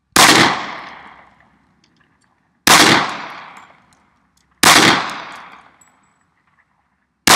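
Glock 30 Gen 4 .45 ACP pistol fired four times, single shots spaced about two seconds apart, each echoing away over about a second; the fourth shot comes right at the end.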